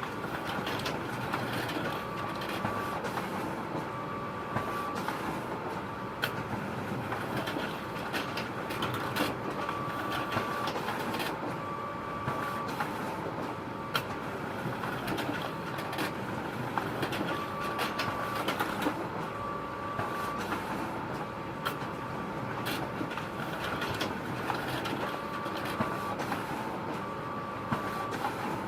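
Photocopier running continuously: a steady mechanical hum with frequent sharp clicks and a short high tone that comes back every few seconds.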